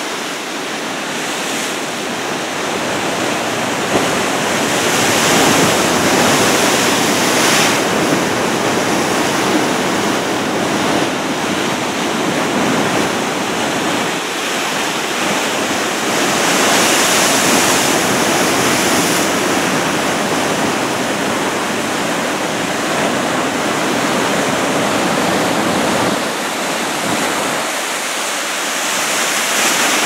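Heavy storm surf from a typhoon swell breaking and washing over the shallows, a continuous rush of water that grows louder twice as waves break.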